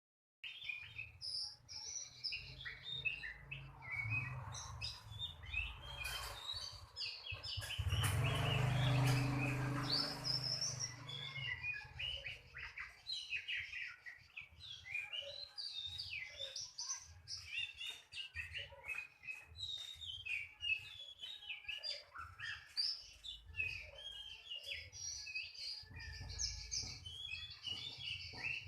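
Oriental magpie-robin (kacer) singing a fast, varied run of chirps and whistles. About eight seconds in, a loud rushing noise covers the song for roughly three seconds.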